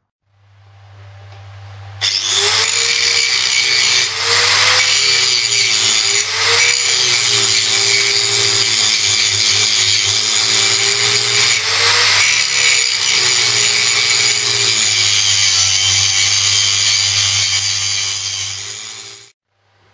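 Angle grinder cutting into the steel bearing race on a Land Rover Series front half shaft, grinding nearly through it so that the race splits off. The grinder spins up with a hum, bites into the metal about two seconds in and grinds loudly and steadily with its pitch wavering under load, then cuts out suddenly near the end.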